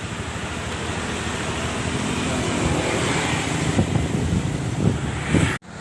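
Road traffic passing, a steady rushing noise that swells in the middle, with wind on the microphone and a couple of short rising engine whines late on; the sound cuts out briefly near the end.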